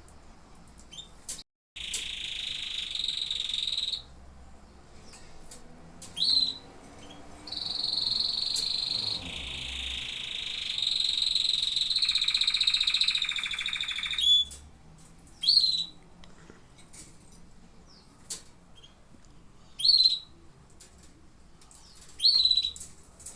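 Domestic canaries singing: long, fast, rolling trills held at a high pitch for several seconds each, broken up by short upward-sweeping chirps.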